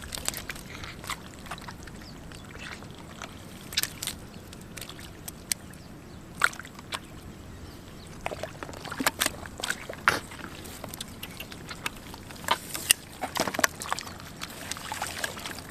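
Hands digging and squelching in wet mud and shallow water, with scattered short wet splats and sloshes that come in small clusters about 9 and 13 seconds in.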